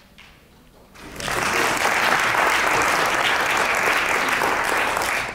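An audience breaks into applause about a second in, a steady mass of clapping.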